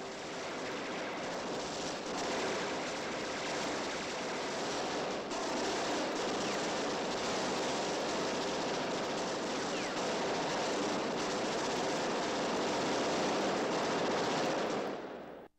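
A sustained, unbroken volley of gunfire from many guns firing at once, dense and steady, cutting off suddenly near the end.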